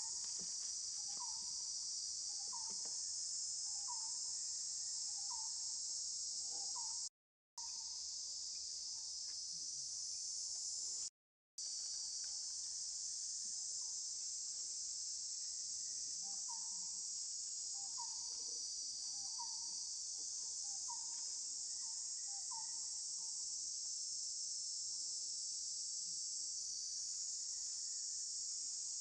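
Steady, dense high-pitched insect chorus. Twice a run of short calls repeats about every second and a half beneath it, and the sound cuts out completely for a moment twice, at about 7 and 11 seconds in.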